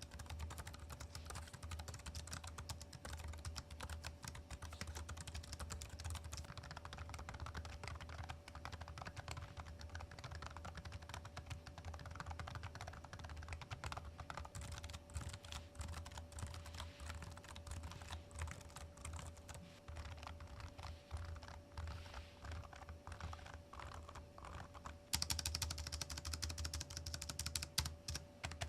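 Continuous typing on a Keychron B6 low-profile scissor-switch (pantograph) keyboard, made as a low-noise keyboard: a fast, soft patter of key clicks that gets louder about 25 seconds in.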